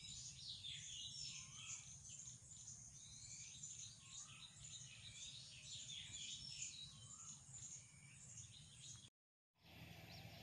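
Faint background of many small birds chirping and twittering, with one short rising-and-falling call repeating every two to three seconds, over a low steady hum. The sound drops out for a moment near the end, where the video cuts.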